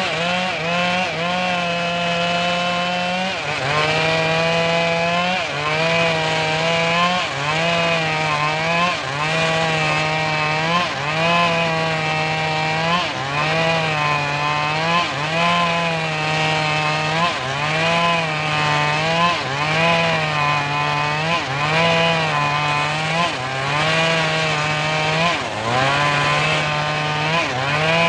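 Homemade engine-driven circular saw bench ripping mahogany boards. The engine and the blade's whine drop in pitch each time the wood bites into the blade, then pick back up as the cut clears, again and again about every two seconds.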